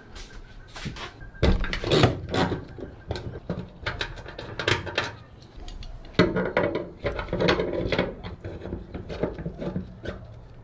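Hand tools and a metal bracket clinking and knocking as the bracket is fitted and bolted onto a bonnet hinge, with scattered short clicks and a few denser bursts of handling noise.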